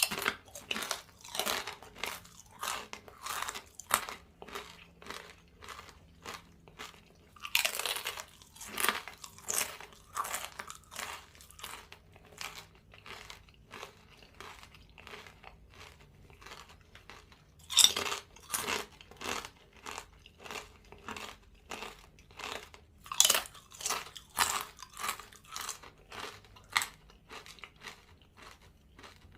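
A person chewing a crunchy snack such as crackers or chips with the mouth close to the microphone: a steady run of crunches, two or three a second, broken by several louder bites.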